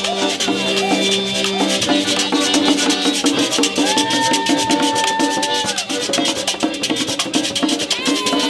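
Live merengue típico: a button accordion playing a melody with one long held note in the middle, over a metal güira scraping a fast steady beat and a tambora drum.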